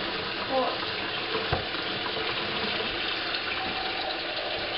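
Kitchen faucet running a steady stream into a stainless steel sink, a hand moving through the water. A light knock about one and a half seconds in.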